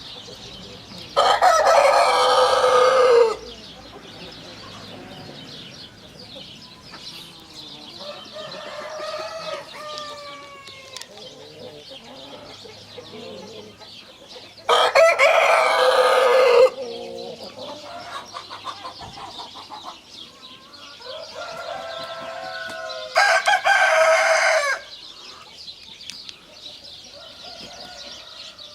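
Rooster crowing loudly three times, each crow about two seconds long. Quieter clucking and calls from chickens come between the crows.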